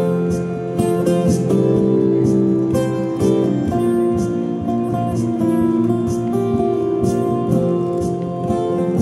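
Acoustic guitar strummed steadily through a small amplifier, playing chords without singing.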